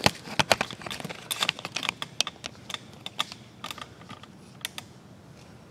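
Quick run of light clicks and clacks as screwdrivers and blow-molded plastic trays are handled in a toolbox drawer. The clicks are dense for the first three seconds, then come singly and sparser.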